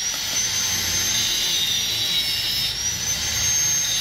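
Electric arc welder tack-welding a steel bracket to hold it in position: a steady crackling sizzle with a thin high whistle above it.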